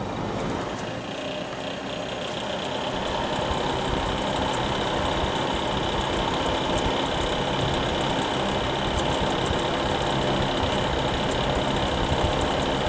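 Fan of a 2000 Fahrenheat 1500-watt space heater starting back up and ramping up in speed, growing louder over the first four seconds or so, then running steadily.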